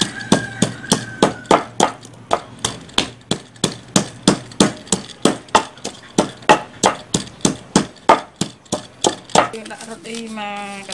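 Wooden pestle pounding dried red chilies, garlic and sesame seeds in a wooden mortar, about three even strokes a second, stopping near the end.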